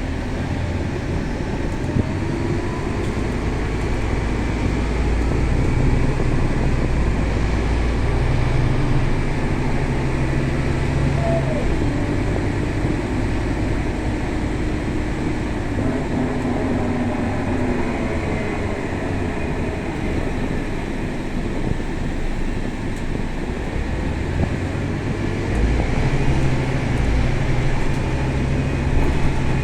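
Scania K320 bus's diesel engine and road noise heard from inside the moving bus, steady throughout, with the low engine note rising and falling several times as the bus pulls away and slows.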